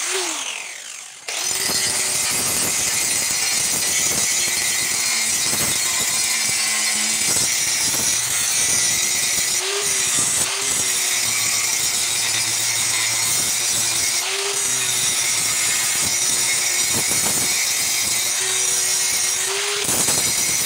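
Electric angle grinder with an abrasive disc grinding rust off a bill hook's curved steel blade: a continuous harsh grinding that jumps up in level about a second in, the motor's pitch rising briefly several times as the disc's load eases.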